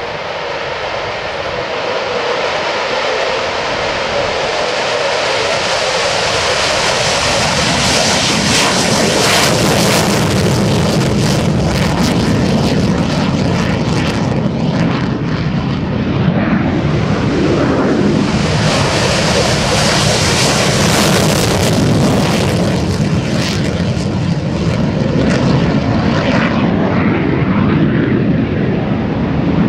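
Jet engine noise of a USAF Thunderbirds F-16 fighter on a takeoff and climb-out. It swells about seven seconds in and stays loud, with a second strong surge a few seconds after the middle.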